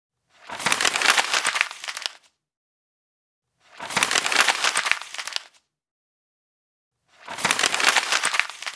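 Paper being crumpled into a ball, in three bouts of about two seconds each with short silences between.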